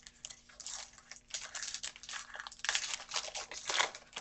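Football trading cards being handled and slid against one another: an irregular run of dry rustling and scraping, busiest in the second half.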